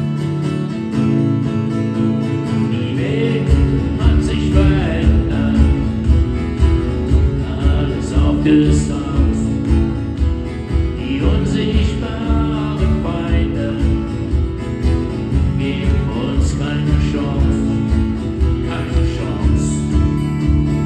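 Live music from two acoustic guitars strummed through a PA, with a steady low beat joining about three and a half seconds in.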